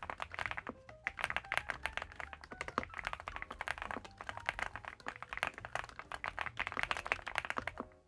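Fast typing on an Infi75 gasket-mounted, foam-filled mechanical keyboard, a dense run of muted keystroke clicks that stops just at the end. Quiet background music plays underneath.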